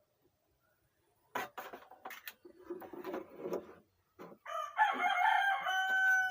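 A rooster crowing: one long call, steady in pitch, starting about four and a half seconds in. It follows a couple of seconds of short, sharp, irregular sounds.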